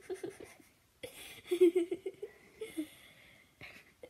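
A child's stifled, breathy giggling in short broken spurts.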